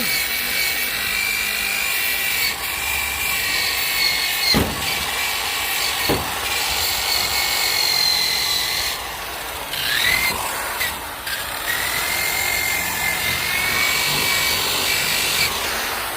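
Electric drill spinning a wire brush against a rusted steel delta anchor, scrubbing off rust: a steady high whine that dips in pitch briefly about ten seconds in, then climbs back up, with a couple of sharp knocks midway.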